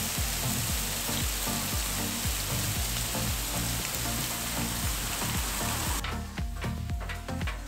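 Beef pieces, bacon strips and onion slices sizzling on a hot Pit Boss four-burner flat-top griddle, over background music with a steady beat. The sizzling cuts off about six seconds in, leaving only the music.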